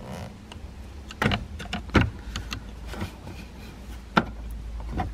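Screwdriver tip clicking and scraping on the plastic housing and retaining tabs of a car's steering-column turn signal switch, several irregular sharp clicks and knocks.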